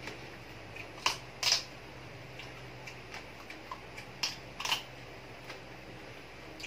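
Crisp crunching from eating deep-fried frog: a few sharp crackles, loudest twice about a second in and twice again around four and a half seconds, with softer clicks of chewing between.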